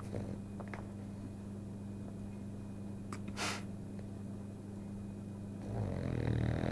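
Sleeping French bulldog breathing noisily through its nose: a short sharp snort about three and a half seconds in, then a longer, louder snore near the end.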